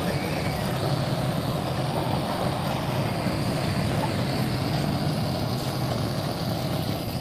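Steady rushing roar of a hose-fed gas torch flame played against a motorcycle fuel tank, burning off thick paint and body filler.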